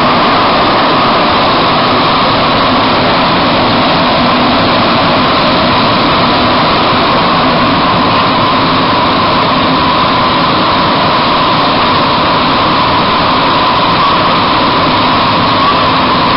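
Bombardier-Vickers MR-63 rubber-tyred metro train running at speed through a tunnel, heard from inside the car: a loud, steady rush of noise with a constant high hum.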